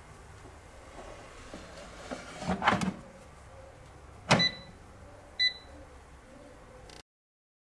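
Navplus AF-338 air fryer basket being handled: a rough sliding scrape of the plastic drawer, then a sharp click with a short high beep, and a second short beep about a second later.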